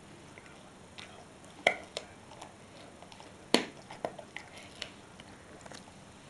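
Chinese shar pei gnawing a hard stick-shaped chew held between its front paws: scattered sharp cracks and clicks of teeth on the chew. The two loudest come almost two seconds apart.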